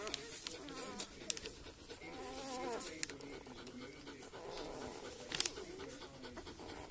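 Five-day-old Northern Inuit wolfdog puppies nursing, giving thin squeaky whines that waver up and down, mixed with small clicking suckling sounds and one sharper click about five seconds in.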